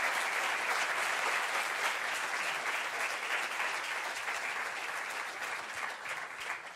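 A large audience applauding, many hands clapping in a steady patter that eases off slightly near the end.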